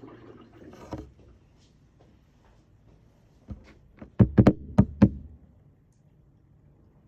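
A single sharp knock, then a quick run of about six sharp knocks within about a second.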